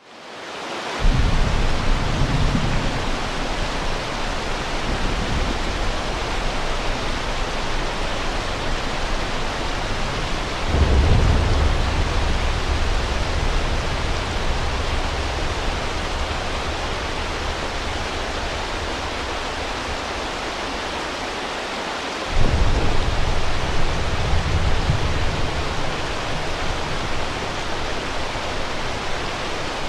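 Steady heavy rain hiss of a thunderstorm, with three low rolls of thunder: one about a second in, one about eleven seconds in, and one about twenty-two seconds in.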